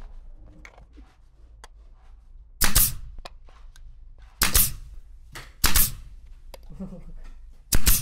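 Four sharp knocks a second or two apart, with fainter clicks and handling noises between them.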